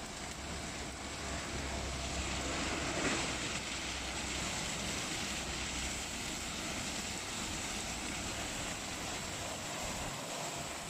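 Tunnel car washing machine running, a steady rushing noise with a low hum underneath.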